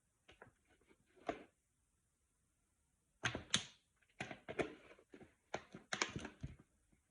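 Handling noises: a few soft knocks, then from about three seconds in a busier run of irregular knocks and scrapes.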